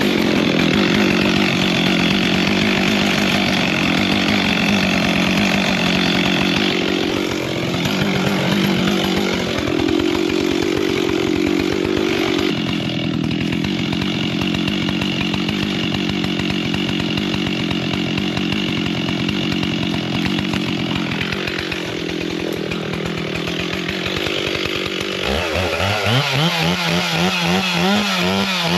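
Gas chainsaw running hard, its engine pitch shifting as it works through wood. About 25 seconds in, the pitch begins swinging rapidly up and down as the saw is revved repeatedly.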